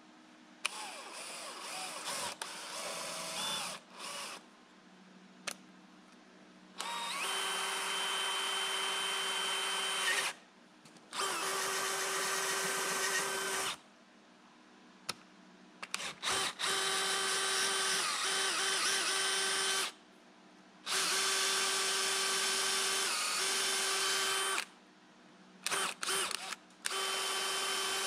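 Cordless drill boring bolt holes through a steel-skinned plywood door, running in repeated bursts of a few seconds with short pauses between, its motor giving a steady whine while the bit cuts.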